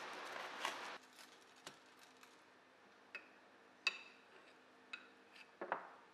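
Light clicks and clinks of a metal kitchen utensil against a dish, about half a dozen, that ring briefly; the loudest comes about four seconds in, with a short scrape near the end. A steady hiss fills the first second and cuts off.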